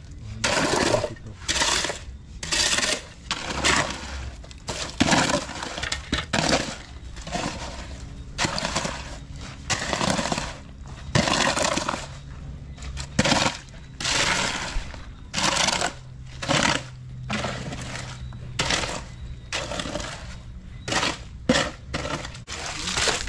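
Steel shovels scraping and crunching through a gravel-and-cement concrete mix on the ground as it is turned by hand, in an irregular series of gritty strokes about one every second.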